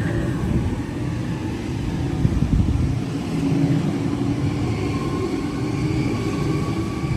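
Sydney Trains electric passenger train running through the station: a steady low rumble with a faint whine over it.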